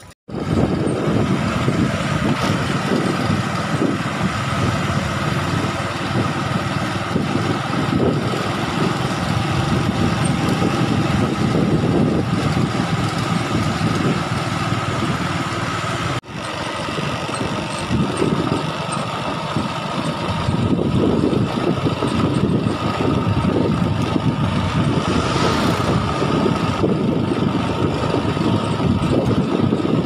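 Vehicle engine running steadily while driving, with a rumbling road noise and a steady high whine over it. The sound cuts out briefly about 16 seconds in.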